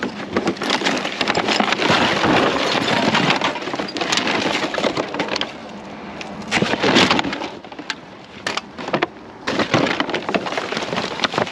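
Trash being rummaged through in a dumpster: clear plastic wrap and cardboard soda cartons crinkling and crackling as they are pulled out, with a short lull about two-thirds through.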